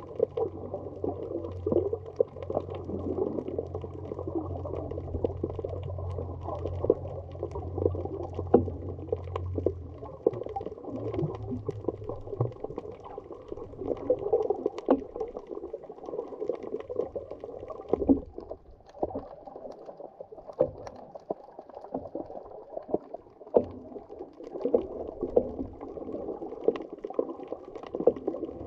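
Muffled underwater sound from a camera in a waterproof housing: water sloshing and scattered sharp clicks and crackles. A steady low hum underneath fades out about ten to twelve seconds in.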